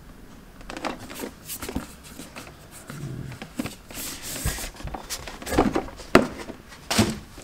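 Cardboard collector's box being handled: the inner box slides out of its printed outer sleeve with scraping and rustling, then several sharp knocks and taps of cardboard in the second half, the loudest just past the middle.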